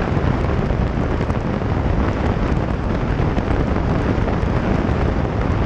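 Steady, loud wind rush buffeting the microphone of a camera on a BMW motorcycle at highway speed, dense in the low end, mixed with the bike's running and tyre hiss on the rain-soaked road.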